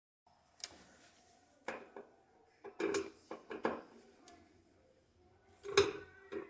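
Scattered knocks and clinks of tools and metal parts being handled during washing-machine repair work, about half a dozen separate hits, the loudest near the end.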